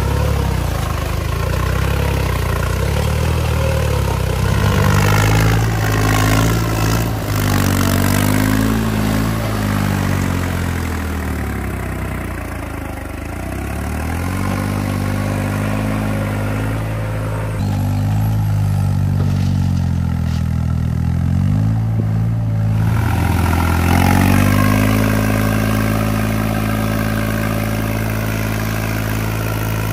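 New Holland 3630 tractor's three-cylinder diesel engine working hard under load, its revs rising and falling several times and then holding steady near the end, as the rear tyres spin and churn through deep mud pulling a loaded trolley.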